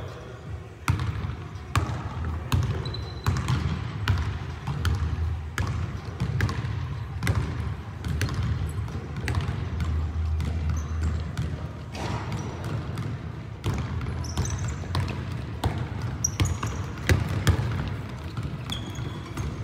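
A basketball bouncing on a hardwood gym floor, dribbled with a hit about once a second, with short sneaker squeaks on the wood in between.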